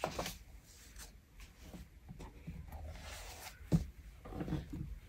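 Faint handling of a hardcover picture book: soft rustles and light taps as the last pages are turned and the book is closed, with one sharp knock about three and three-quarter seconds in.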